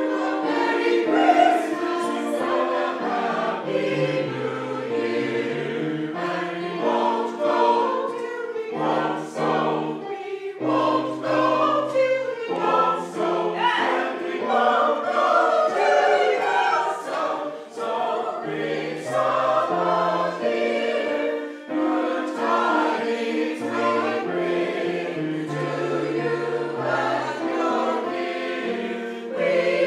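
Mixed choir of women and men singing a carol in harmony, several parts holding notes and moving together in steps.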